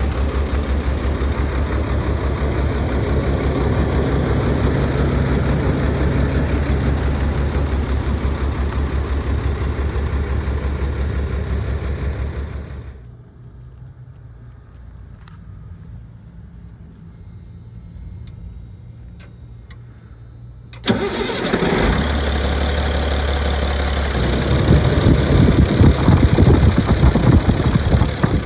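Caterpillar diesel engine of a Freightliner FL80 truck idling with a steady low throb. About halfway through it shuts off, and after several quiet seconds it starts again suddenly and runs, louder and rougher for a few seconds near the end.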